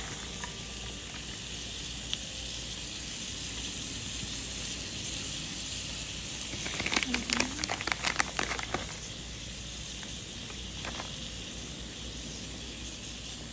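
Burger patty sizzling steadily in an open mini waffle maker. From about six and a half to nine seconds in, a plastic pouch of bacon bits rustles and clicks as the bits are shaken out, the loudest part.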